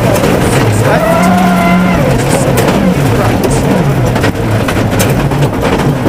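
Ford Focus WRC's turbocharged 2.0-litre four-cylinder rally engine heard from inside the cockpit under hard driving on gravel: the revs drop and climb again through gearshifts, about a second in and again around two seconds in. Gravel knocks and rattles against the car's underside throughout.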